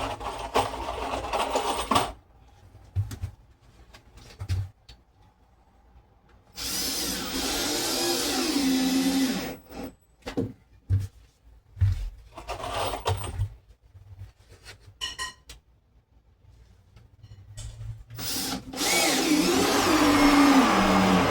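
Power drill running in four bursts, its motor pitch dipping and rising as it takes load, with short knocks and clicks between the bursts.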